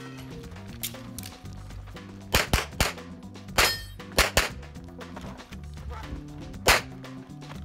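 Canik TP9 SFx 9mm pistol firing a string of sharp shots, about seven, several in quick pairs, with a gap of a couple of seconds before the last one.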